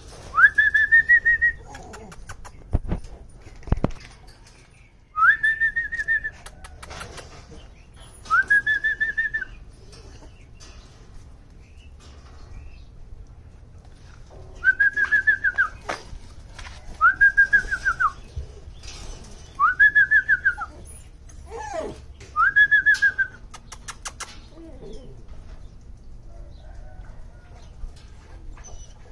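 German Shorthaired Pointer puppies whining: about seven high, drawn-out whines, each about a second long, rising at the start and then wavering. There are two low thumps about three and four seconds in.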